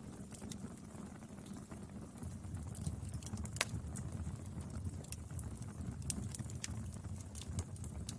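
Wood fire burning, a steady low rumble of flames with scattered sharp crackles and pops, a louder pop about three and a half seconds in and another near six seconds.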